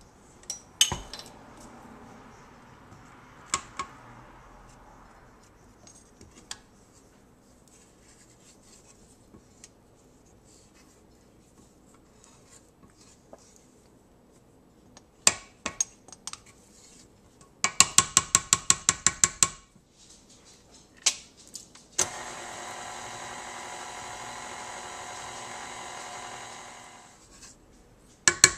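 Stainless steel stand-mixer bowl being knocked and scraped: scattered sharp taps, then two quick even runs of loud metallic clicks. In between, a KitchenAid stand mixer motor runs steadily for about five seconds and winds down.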